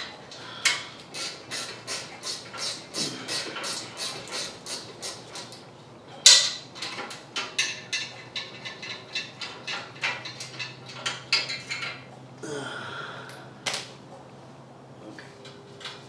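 Hand ratchet wrench clicking in quick, even strokes, about three or four a second. It is followed by scattered metal clicks and knocks, one louder knock among them, and a short scrape.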